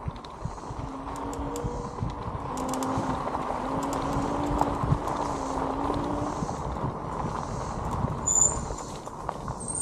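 Electric bike riding a packed dirt trail: the tyres rumble and crunch over the ground, with a faint low hum from the motor that wavers slightly in pitch and fades about two-thirds through. Light clicks and rattles, and a few short high chirps near the end.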